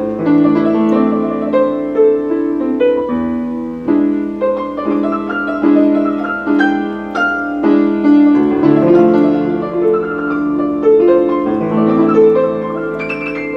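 A Steinway piano playing a classical-style piece: a run of sustained notes and chords in the middle register, each struck note ringing on.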